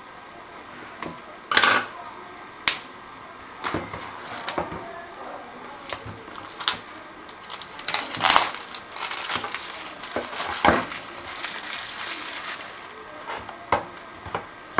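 Scissors cutting the plastic shrink-wrap seal on a cardboard phone box, then the plastic film crinkling as it is peeled off, with a stretch of crinkling about halfway through. Scattered taps and knocks come from the box being handled on the desk.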